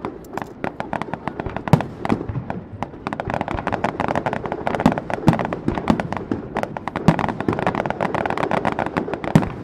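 Fireworks display: a dense, continuous crackle of many small sharp reports. Louder bangs stand out at intervals, about five times.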